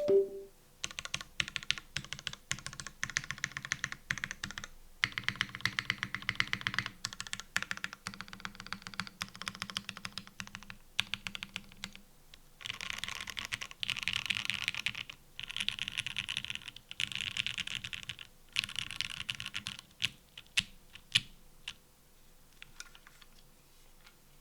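Custom mechanical keyboard with lubed Gateron Oil King linear switches on a 2mm polycarbonate plate with GMK keycaps, typed on fast in bursts of a few seconds with short pauses. It opens with a loud knock and thins to scattered single keystrokes near the end.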